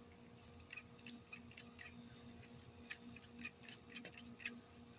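Scissors snipping grass along the edge of a concrete walkway: quick, faint, irregular clicks, about three a second, over a faint steady hum.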